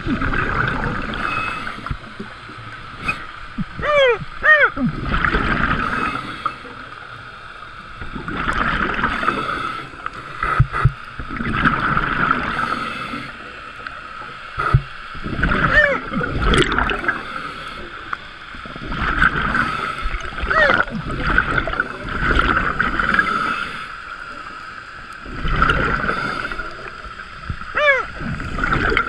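Scuba diver breathing underwater through a regulator: exhaled bubbles gurgling out in swells about every three to four seconds, some breaths with short falling squeaks, over a steady high hum.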